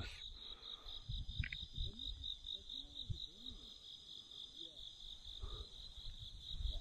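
Insect chorus of crickets: a steady, high-pitched pulsing trill, with faint low rumbles beneath.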